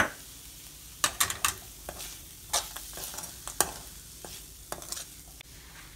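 Metal spoon stirring flattened-rice kesari with cashews in a steel kadai, scraping and clicking against the pan several times over a faint steady hiss.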